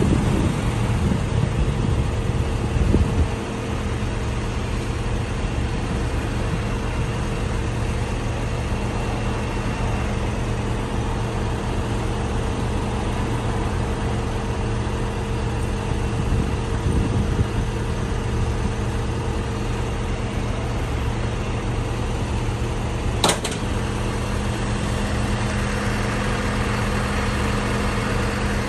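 Recovery truck's engine idling steadily with a constant low hum, running while its crane lifts the motorbike. A single sharp metallic knock comes about 23 seconds in.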